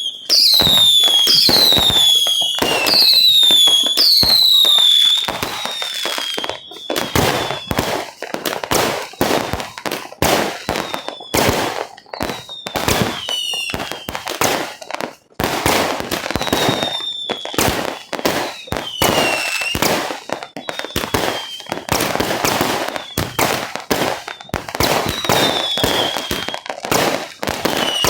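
Fireworks going off: a quick run of whistling shells, each a falling whistle, over the first five seconds or so, then dense bangs and crackling with an occasional whistle.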